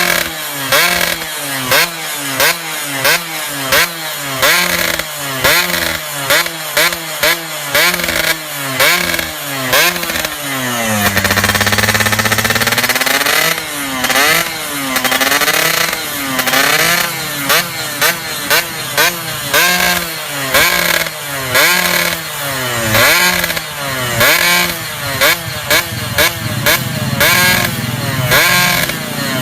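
Yamaha F1ZR's 110 cc two-stroke single-cylinder engine through a racing exhaust, revved in quick repeated throttle blips. About eleven seconds in it is held high for a couple of seconds, then swung up and down more slowly before the quick blips return near the end.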